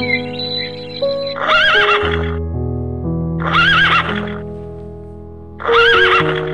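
A horse whinnying three times, each call about a second long with a quavering pitch, over background music of held notes.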